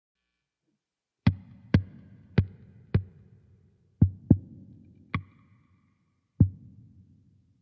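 Stratocaster-style electric guitar played as a drum: the hands slap and tap its body and muted strings, giving eight separate drum-like hits, some deep thumps and some sharper snare-like cracks. The hits come at an uneven pace, as if each drum sound is being tried out and set.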